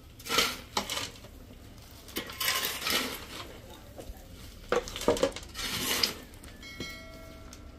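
Irregular clattering and scraping of household objects in short bursts, with a brief steady ringing tone about seven seconds in.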